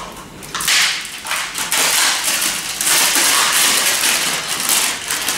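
Handling noise from a small plastic electronics board: uneven rustling and light clicking as it is turned in the hands and its tangled wire tie is worked at.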